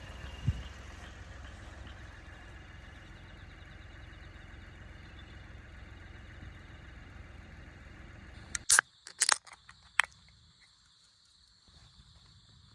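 A steady low engine-like rumble with a sharp knock about half a second in. The rumble stops abruptly near the end, followed by a few loud sharp clicks and then a faint, steady high-pitched hum.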